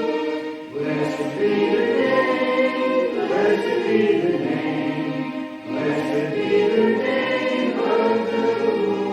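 Congregation singing a hymn with instrumental accompaniment, in held notes with brief breaks between phrases.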